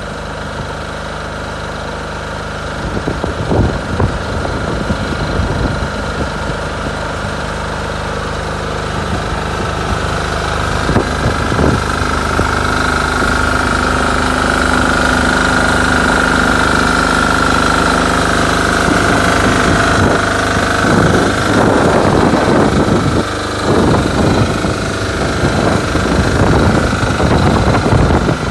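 The engine of a Trade Balers TBR606 screening machine running steadily, with irregular knocks and rattles over it. A steady whine grows stronger about ten seconds in.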